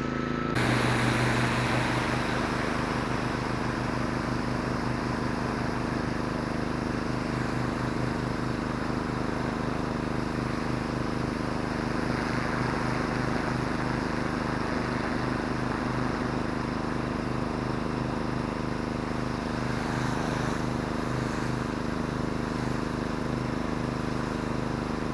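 Pressure washer running: its engine gives a steady, pulsing drone under the hiss of the wand's high-pressure water jet spraying concrete and dirt. The spray starts about half a second in.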